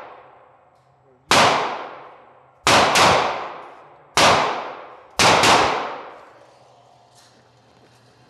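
Auto-Ordnance Thompson 1911 .45 pistol firing six shots in quick succession, some in close pairs, each shot ringing out and dying away over about a second.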